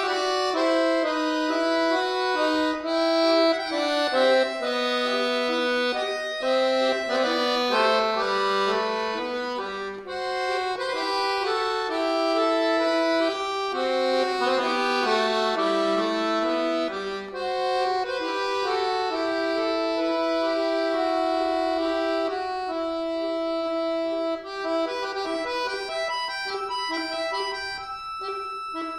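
Chromatic button accordion (bayan) played solo: a moving melody over chords, softening to longer held notes toward the end.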